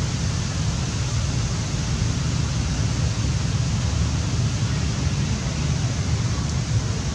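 Wind buffeting the microphone: a low, fluctuating rumble over a steady hiss.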